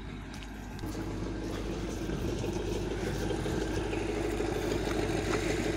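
Diesel engine of a railway recovery train running steadily, a low hum that grows louder about a second in.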